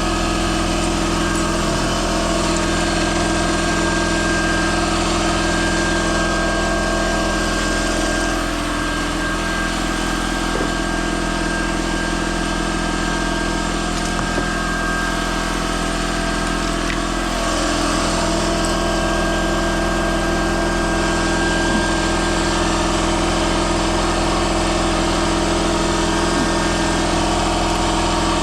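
A steady machine hum with several constant tones, unchanging throughout, with a few faint ticks over it.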